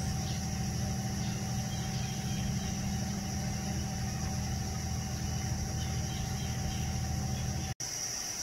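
Steady low machine hum, like a motor or engine running, with a thin high steady tone above it. The hum stops abruptly near the end.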